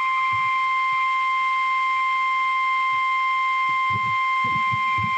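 NOAA Weather Radio 1050 Hz warning alarm tone: a single steady electronic tone at an even, fairly loud level, which signals an emergency warning about to be read, here a severe thunderstorm warning.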